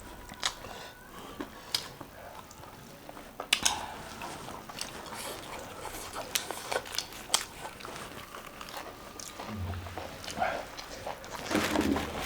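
Close-up eating sounds: chewing and biting food, with scattered short crisp clicks and crackles.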